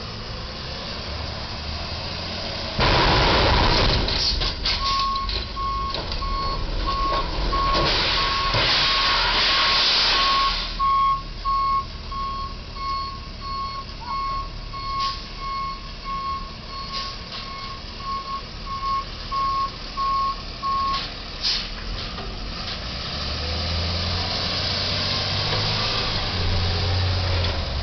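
Box truck's reversing alarm beeping steadily for most of the stretch as the truck backs up after striking the bridge, with a loud rush of noise just before the beeping starts and again a few seconds in. Near the end the truck's engine rumbles louder as it pulls forward and away.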